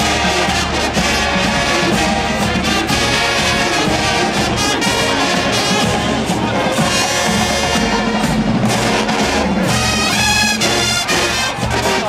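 HBCU show-style marching band playing a loud, brass-heavy tune, with sousaphones and trumpets over a steady drumline beat.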